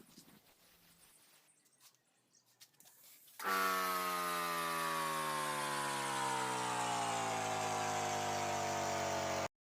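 Electric power tool motor running loudly with a hissing whine, starting suddenly about three and a half seconds in. Its pitch falls slowly and steadily, and the sound cuts off abruptly near the end.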